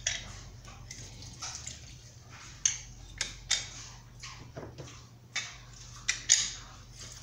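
Half a lemon squeezed by hand over a glass mixing bowl of dough, its juice squirting and dripping in as a string of short, irregular squirts.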